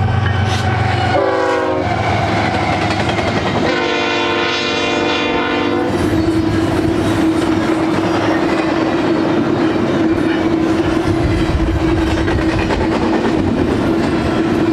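A diesel locomotive air horn sounds a short blast that drops in pitch at about a second in, then a longer steady chord about four seconds in. After that comes the steady rumble and clickety-clack of a double-stack intermodal train's well cars rolling by, with a steady hum-like tone.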